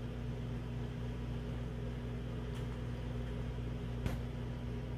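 Steady low mechanical hum made of several steady low tones over a faint hiss. One sharp click comes about four seconds in, and a fainter one about halfway through.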